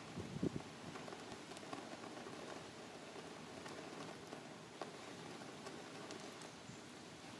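Faint outdoor background noise with scattered soft clicks and crackles, and a brief low thump about half a second in.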